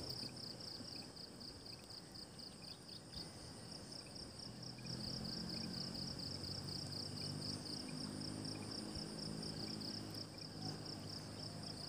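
Crickets chirping in even, rapid pulses, a few a second. A faint low steady hum joins in about four to five seconds in.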